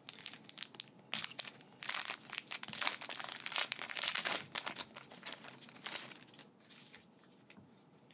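Foil booster pack wrapper crinkling and crackling as it is handled and torn open by hand, the crackle fading out about six and a half seconds in.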